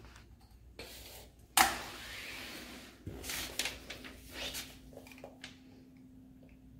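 Handling noise from a plastic squeeze bottle of acrylic paint being opened: a sharp snap about a second and a half in, a short rustle after it, then a few light clicks and taps.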